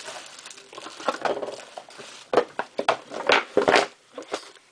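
Packaging being handled and rummaged through: irregular rustling, crinkling and scraping, growing louder from about two seconds in, with several sharp crackles near the middle.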